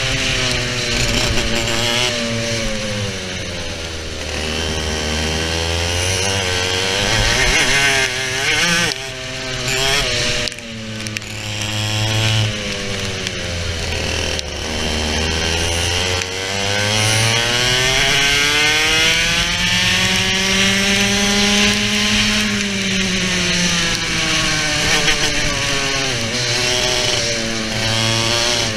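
TKM BT82 100cc two-stroke kart engine heard onboard, revving up and down lap after lap. Its pitch climbs as the kart accelerates and drops off when the driver lifts, with a long climb in the second half before it falls away.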